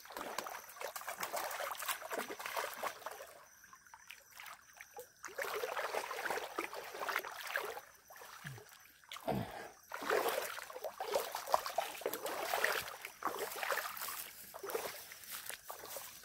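Shallow floodwater splashing and sloshing in irregular spurts as a person wades through it and strikes at it, with quieter stretches about four seconds in and again around nine seconds in.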